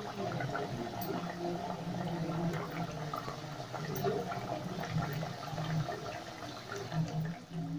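Khasta kachoris deep-frying in a kadhai of hot oil over a low flame: the oil bubbles and sizzles steadily with many small crackles. A low hum comes and goes underneath.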